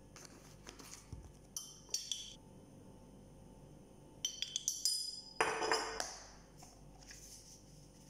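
Light clinks of spice containers and a spoon against a ceramic plate as spices are shaken onto flour, in a short cluster about two seconds in and a longer, louder cluster with a brief shaking rattle about four to six seconds in.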